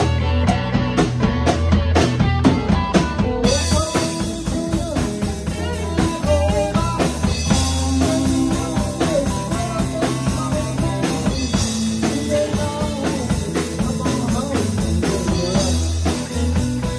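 Live rock band jamming on electric guitars, bass guitar and drum kit, the lead guitar playing bending lines. Cymbals come in about three and a half seconds in.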